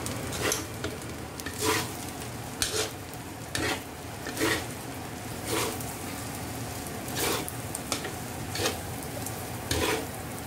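Fried rice sizzling in a steel wok while a metal spatula scrapes and tosses it, with a scrape about once a second over the steady sizzle.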